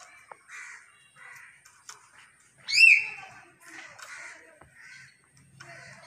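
Hill myna calling: a string of short, harsh calls, with one loud upward-sweeping whistle about three seconds in.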